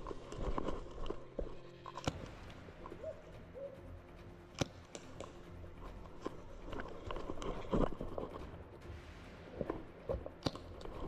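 Footsteps and scuffing of players moving about, with a few sharp clicks or cracks about 2, 4.5 and 10.5 seconds in.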